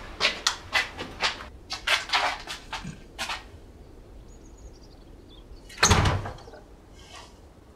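A quick, irregular run of sharp knocks or bangs, then a faint short falling squeak like a door hinge, and a door shutting with one heavy thud about six seconds in.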